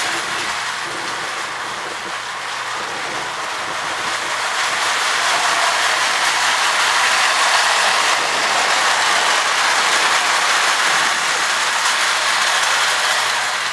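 Marx 897 lithographed tinplate toy train running on its track: a steady metallic clatter and gear whir from the wheels and motor. It dips a little early, swells louder as the train comes past close by, then eases near the end.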